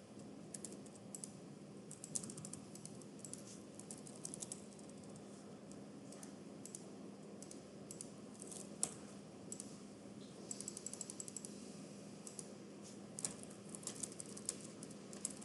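Faint computer keyboard typing in irregular flurries of keystrokes, with a louder single click about nine seconds in.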